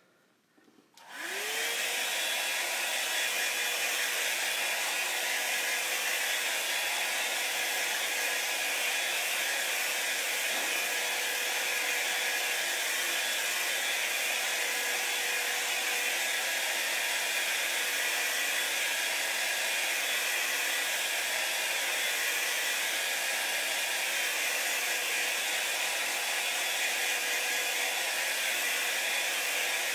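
Small handheld blow dryer switched on about a second in, its motor spinning up quickly, then running steadily while it dries chalk paste.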